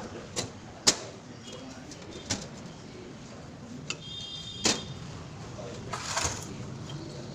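Scattered sharp clicks and knocks of hand work on a refrigerator's panels and bolts during reassembly, with a brief high chirp about four seconds in.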